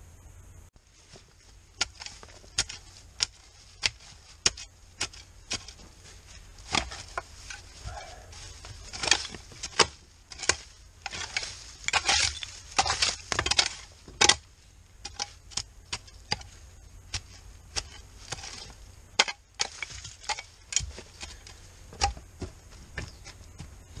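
Garden spade digging into soil: irregular sharp chops and scrapes of the blade cutting the ground, coming thickest in the middle.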